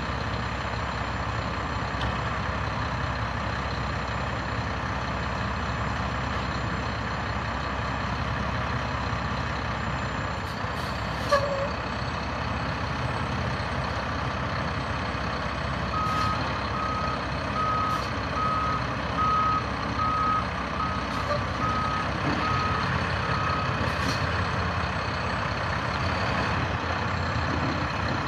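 2010 Mack GU712 dump truck's diesel engine running steadily. Partway through, its backup alarm beeps about ten times at a steady pace, a little over once a second, then stops. A single sharp click sounds about a third of the way in.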